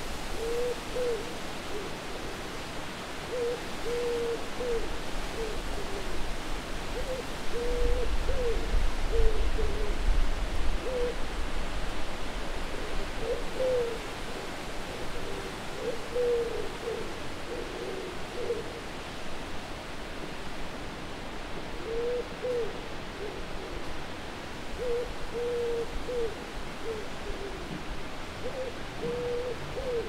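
Owl hooting in short runs of calls, again and again, over a steady wind noise. The wind swells louder for a few seconds about a quarter of the way in.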